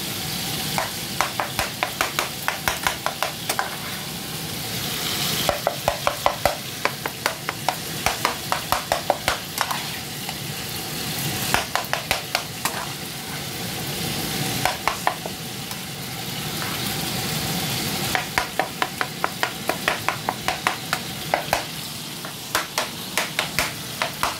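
Ground beef sizzling in a frying pan while a spoon chops and stirs it, the spoon tapping and scraping against the pan in quick runs of strokes, several a second, with short pauses between runs.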